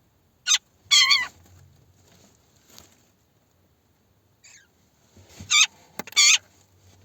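Magpies calling: four short, harsh, rasping calls, one about half a second in, a longer one a second in, and two close together near the end, with a faint call in between.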